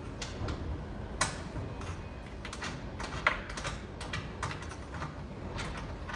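Irregular light clicks and taps, a few a second, as a sliding door's hanging roller is handled and adjusted at its threaded stem under the aluminium track. Two sharper clicks stand out, a little over a second in and a little past three seconds in.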